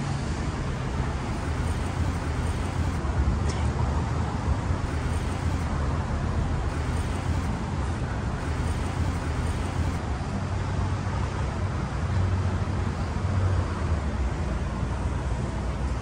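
Steady city street traffic, with a low hum of vehicle engines running and passing.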